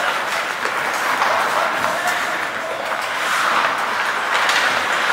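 Ice hockey play: skate blades scraping and carving the ice in a steady hiss, with a few sharp clicks of sticks and puck.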